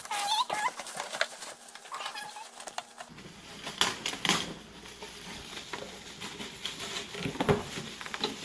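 Rustling, clicks and knocks of packaging and appliance parts being handled, with a few short high squeaks in the first three seconds.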